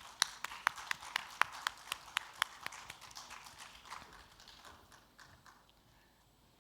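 Hand clapping in welcome, a few sharp, evenly spaced claps about four a second, fading out over the last few seconds.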